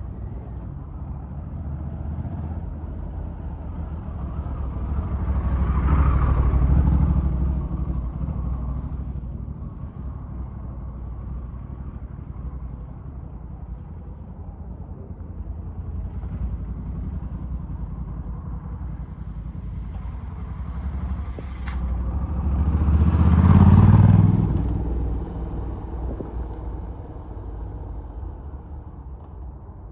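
Honda Africa Twin motorcycle engine passing by twice, rising and fading each time, with a steady low rumble in between.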